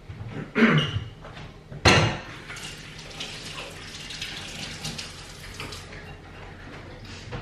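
Kitchen mixer tap running into a steel sink as hands are rinsed under it, for about four seconds, stopping shortly before the end. A sharp knock comes just before the water starts.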